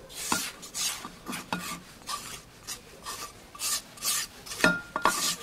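Flour sliding and scraping out of a tilted bowl into a glass mixing bowl, in a string of short, uneven rasping hisses, with a few sharper knocks near the end.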